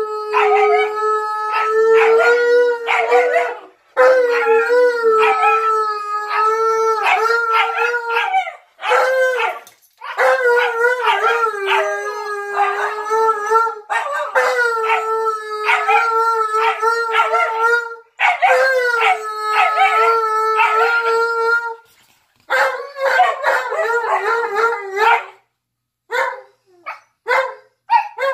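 A white husky puppy and an Alaskan malamute howling together: long, held howls in overlapping voices, broken by short pauses every few seconds. Near the end the howls give way to short, broken yips.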